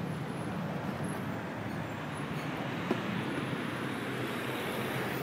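Steady street traffic noise, with one small click about three seconds in.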